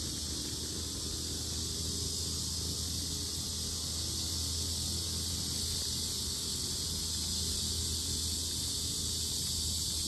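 Cicadas droning in a loud, steady, high-pitched chorus without a break, over a low rumble.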